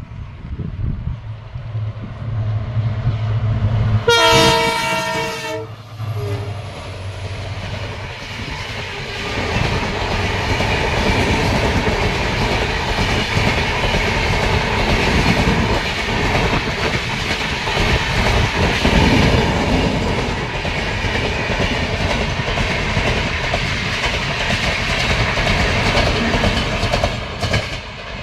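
Indian Railways WDP-4D diesel locomotive, with a 16-cylinder EMD 710 two-stroke engine, approaching at speed with a low engine rumble. It gives one loud horn blast about four seconds in, lasting about a second and a half. The long rake of express passenger coaches then rushes past, wheels clattering over the rail joints for some twenty seconds, and the noise drops away near the end.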